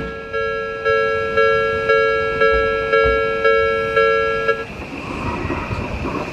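Japanese railway level-crossing alarm ringing its two-note electronic 'kan-kan' bell about twice a second. Each stroke fades away, and the alarm stops about four and a half seconds in, leaving steady vehicle noise.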